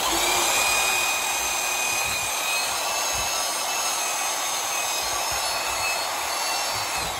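Portable band saw running steadily while its blade cuts through the housing of a Stihl MS250 chainsaw, a continuous motor whine with the hiss of the blade.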